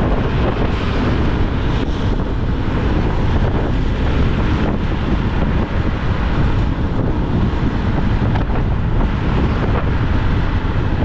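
Steady wind rushing and buffeting on the microphone of a Honda XRM 125 motorcycle riding at speed, with engine and road noise underneath.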